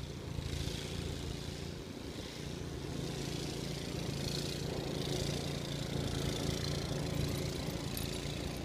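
A dog and a person moving through deep snow, with swishing, crunching swells every so often, over a steady low hum.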